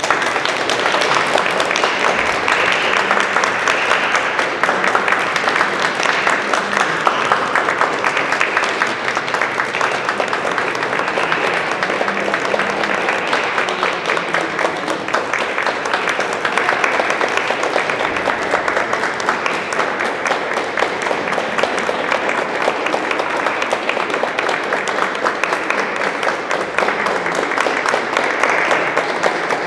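Audience applauding, many hands clapping at once. It starts suddenly and keeps on at a steady level.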